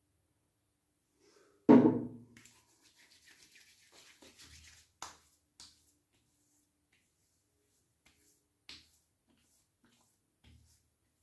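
A sharp knock with a short ring about two seconds in, then light rubbing and handling sounds and a few faint clicks, as aftershave balm is worked in by hand after a shave.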